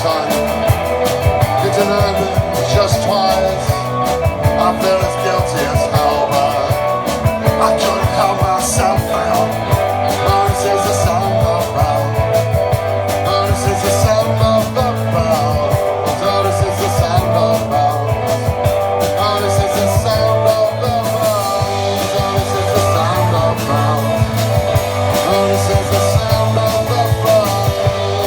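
A band playing a song live, loud and continuous.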